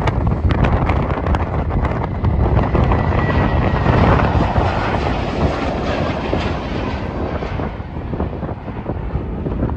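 Boeing 737-700 jet engines at takeoff thrust: a loud, steady roar with crackling as the airliner lifts off and climbs away, its higher tones fading over the last couple of seconds.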